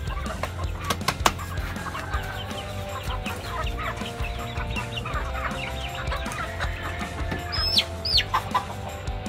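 Domestic hens clucking as they gather at feed, with a couple of sharp knocks about a second in and two high, falling calls near the end.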